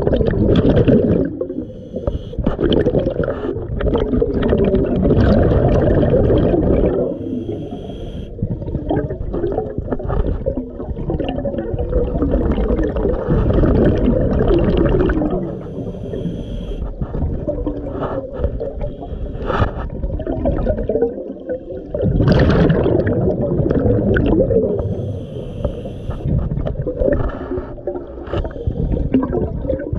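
Scuba diver breathing underwater through a regulator: long gurgling rushes of exhaled bubbles repeating every five or six seconds, with short dips between breaths.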